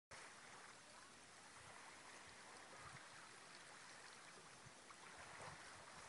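Faint, steady wash of calm river water lapping at a stony shore, with small scattered trickling ticks.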